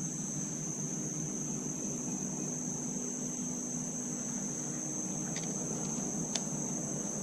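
A steady, high-pitched chorus of insects shrilling over a low, steady hum, with a few faint clicks near the end.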